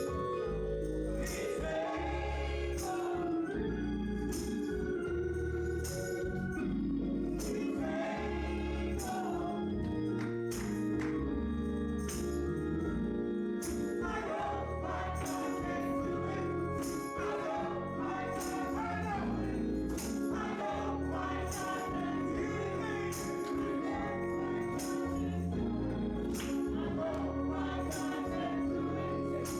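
Gospel praise music: a group of voices singing over a band with a steady beat.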